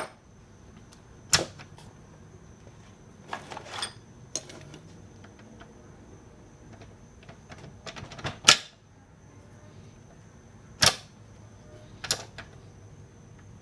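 Scattered sharp clicks and knocks, about six in all with a short cluster early on, of hand tools and metal parts being handled during clutch work. The loudest knock comes a little past the middle.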